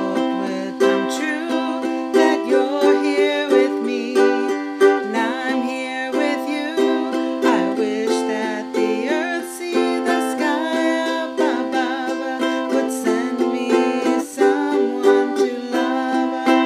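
Gretsch concert ukulele strummed in a steady rhythm, with a woman singing along.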